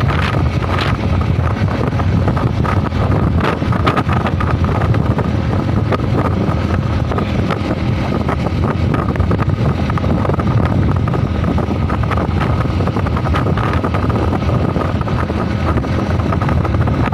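Steady loud wind buffeting the microphone, a low rumble with a faint steady whine and scattered small clicks.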